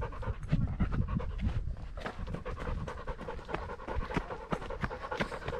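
Dog panting rapidly and heavily right at the body-worn camera, hot and tired after exertion.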